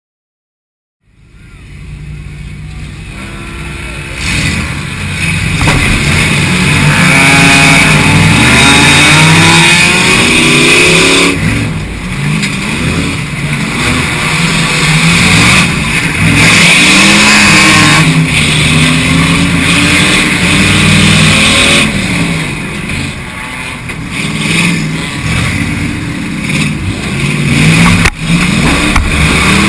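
Several car engines racing together, revving and accelerating with overlapping pitches that rise and fall as the cars speed up and slow down. The sound starts suddenly about a second in and stays loud.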